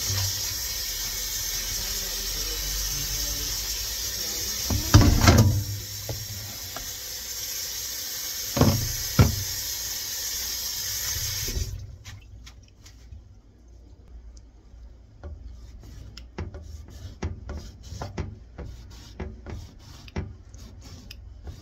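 Kitchen tap running into a stainless steel sink as raw steak is rinsed, with a few loud thuds and splashes around five and nine seconds in. The water cuts off suddenly about halfway through, leaving soft, scattered wet handling sounds of raw meat.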